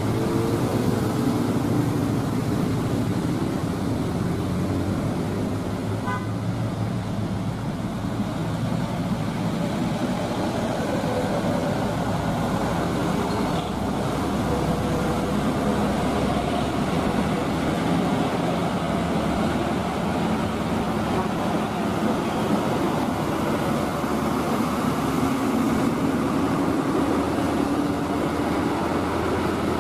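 Diesel truck engines working up a hill road under load, with passing road traffic. A brief horn toot sounds about six seconds in, and an engine note rises near the end.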